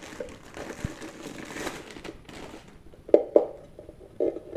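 Packaging of a new hard drive enclosure crinkling and rustling as it is unwrapped, followed by three short sharp knocks in the last second and a half as the unit is handled.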